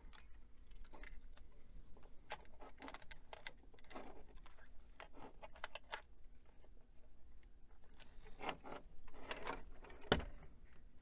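Scattered small clicks, taps and light rattles of parts being handled while an old computer is taken apart, its internal cables and connector latches being worked loose. A sharper knock comes about ten seconds in.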